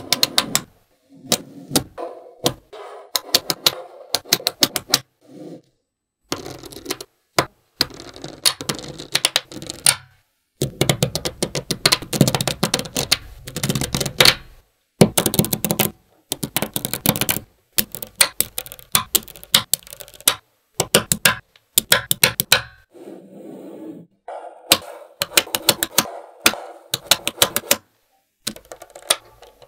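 Small magnetic balls snapping together in quick runs of sharp clicks, with short pauses between runs, as they are clicked into place one after another.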